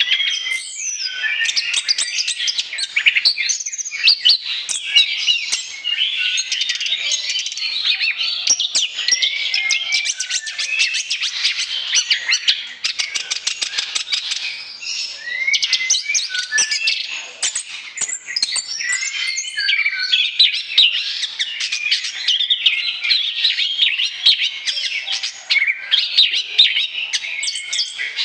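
Orange-headed thrush (anis kembang) in full song: a continuous, fast and varied stream of whistles, chirps and rapid trills, with hardly a pause.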